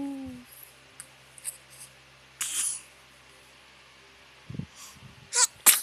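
A loud sneeze near the end, a quick rising 'ah' breath-in that snaps into a sharp burst, with a softer breathy hiss about two and a half seconds earlier.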